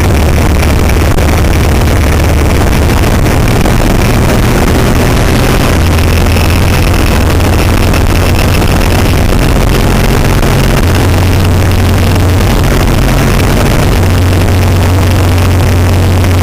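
Motorcycle engine running under way, its low note shifting a few times with throttle, under loud wind rushing over the microphone.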